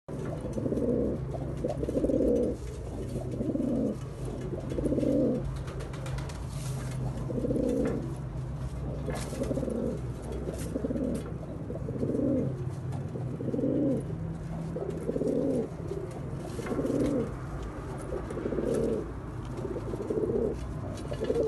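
Domestic pigeon cooing over and over, one coo about every one and a half seconds, the bowing coo of a pigeon displaying to its mate.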